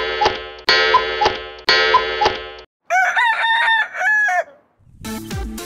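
Three ringing tones, one a second, each fading out, then a rooster crowing once, a cock-a-doodle-doo of several bending notes. Music starts near the end.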